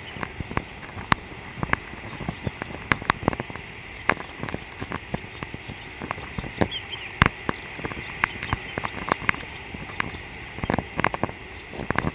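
Steady high-pitched insect chorus, with irregular sharp clicks and taps scattered through it, often several a second.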